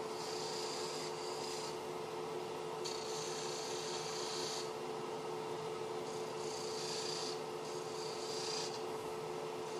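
A skew chisel shearing spinning soft white maple on a wood lathe, the cut hissing in several short passes of a second or two with brief pauses between, over the lathe's steady motor hum.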